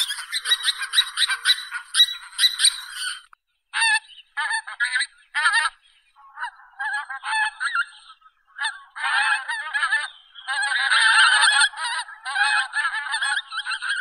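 Swan goose (Anser cygnoides) honking: repeated calls in bursts separated by short pauses. The calling is densest in the first three seconds and again about ten to twelve seconds in.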